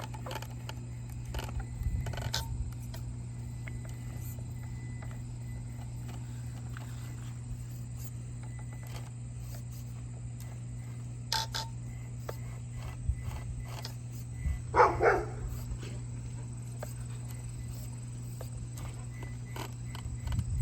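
Small RC crawler working slowly over obstacles: scattered light clicks and knocks over a steady low hum. A dog barks once, briefly, about fifteen seconds in, the loudest sound here.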